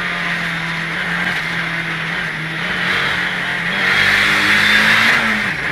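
Rally car engine pulling hard, heard from inside the cabin, over a steady hiss of tyre and road noise. Its pitch holds steady, climbs about four seconds in, then drops sharply just before the end as the driver lifts or shifts.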